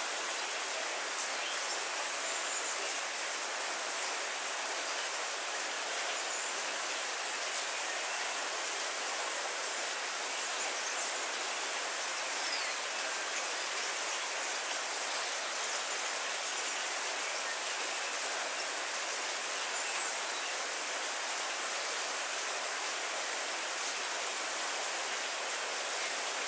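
Heavy rain falling steadily on leafy trees and foliage, an even hiss that does not change, with no thunder.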